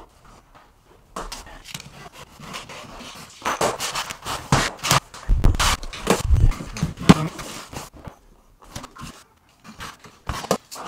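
Utility knife scoring luxury vinyl plank against a metal straight edge, with scraping and clicking as the plank and tools are handled and a few heavy knocks in the middle.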